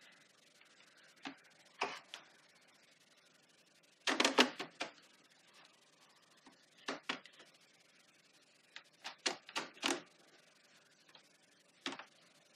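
Eyeshadow palettes clacking against each other as they are flipped through and pulled out of a drawer: irregular light clicks and knocks, with a dense flurry about four seconds in and another run around nine to ten seconds.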